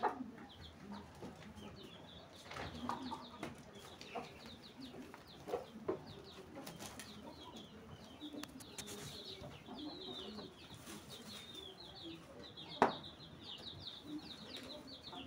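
Birds chirping in quick, high, repeated notes that grow busier later on, with chickens clucking low underneath and a few light knocks. One sharp tap comes near the end.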